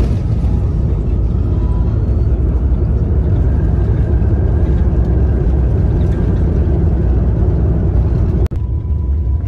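Steady low rumble and roar of an airliner heard from inside the cabin as the jet rolls along the ground. It breaks off abruptly for a moment near the end.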